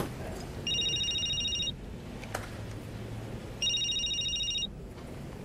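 Mobile phone ringing: two rings of about a second each, roughly three seconds apart, each a high, rapidly pulsing electronic ring tone.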